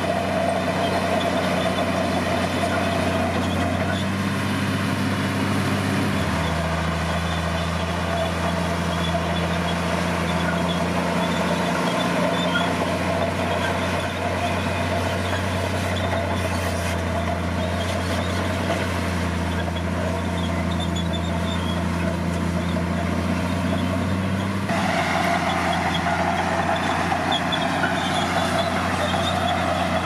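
Komatsu D60P crawler bulldozer's diesel engine running steadily under load as it pushes earth. Its note drops about six seconds in and picks up again a few seconds before the end.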